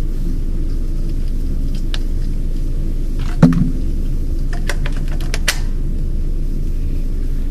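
A single suppressed .17 HM2 rifle shot from a Ruger 10/22 converted to 17 Mach 2, a short sharp report with a brief low ring, about halfway through. It is followed by a few light clicks, over a steady low rumble.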